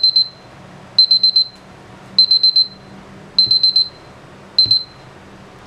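Countdown timer alarm on a smartphone beeping: bursts of four rapid high beeps, about one burst a second, five times, the last burst cut short as it is stopped. It signals that the five-minute timing is up.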